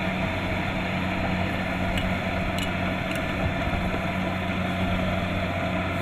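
Kubota DC-70 Plus combine harvester's diesel engine running steadily with a constant low hum, a few faint ticks near the middle.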